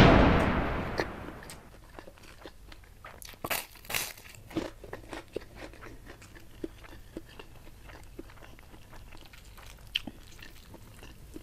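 Close-miked eating: crunching bites of a fried kerupuk cracker, loudest about three to four seconds in, then softer chewing clicks. A loud hissing swoosh sound effect fades out over the first second and a half.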